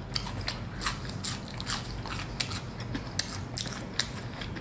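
A person chewing a mouthful of crispy battered fried squid ring, with many quick, irregular crunches of the fried coating close to the microphone.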